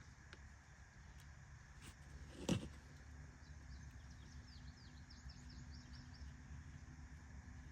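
A single dull thud about two and a half seconds in, then a small bird singing a quick run of high, falling chirps, over a steady low outdoor rumble.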